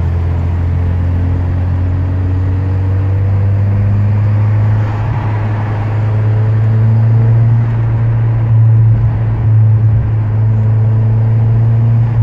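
In-cabin drone of a Seat Leon Cupra R's 1.8-litre turbocharged four-cylinder at a steady cruise, mixed with road and tyre noise. It gets a little louder in the second half.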